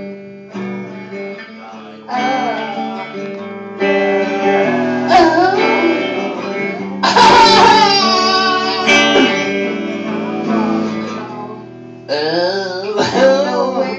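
Guitar strumming chords, with a voice singing loosely over it in stretches.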